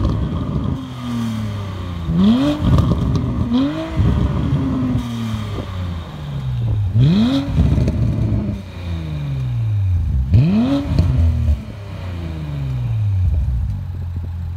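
Porsche Panamera 4 E-Hybrid's twin-turbo V6 through an ARMYTRIX cat-back valvetronic exhaust, revved in five quick blips: three close together, then two spaced a few seconds apart. Each time the revs fall back slowly, with a few crackles, and the engine settles to a steady idle near the end.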